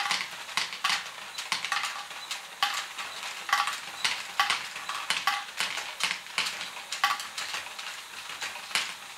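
Small plastic LEGO balls clattering through a running LEGO Great Ball Contraption pump mechanism: a steady rattle with sharper clacks roughly once a second.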